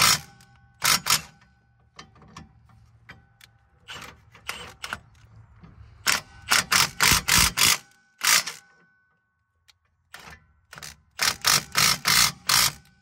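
Hand ratchet clicking in short runs as it winds the forcing screw of a Lisle 40100 hub bearing puller, drawing a rear hub bearing assembly out of its knuckle. It makes single sharp clicks and quick series of about five a second, with pauses between strokes.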